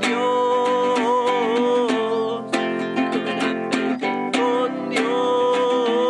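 A man sings while strumming a nylon-string acoustic guitar. He holds long, slightly wavering sung notes in the first two seconds and again from about four and a half seconds, with the guitar alone in between.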